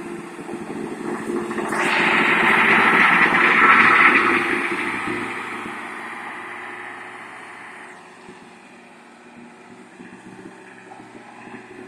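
Blue Bird school bus with a diesel engine driving past. The engine and road noise build to a peak about three to four seconds in, then fade as the bus moves away.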